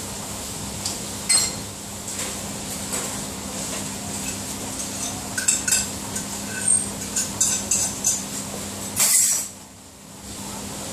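Crockery and cutlery clinking and knocking as dirty dishes are handled and scraped, scattered clinks over a steady low hum. A short, loud rush of noise about nine seconds in.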